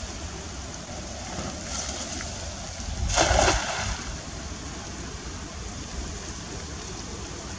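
A single loud splash of water about three seconds in, over a steady background of wind and lapping water at a lagoon.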